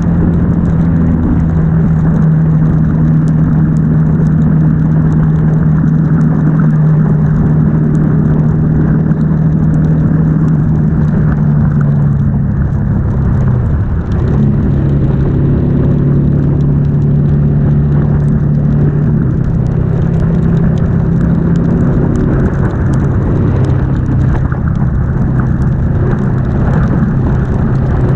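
Ducati S2R's air-cooled L-twin engine running at a steady highway cruise, a strong even drone under a rush of wind and wet-road noise. About halfway through the engine note dips briefly and settles at a lower pitch.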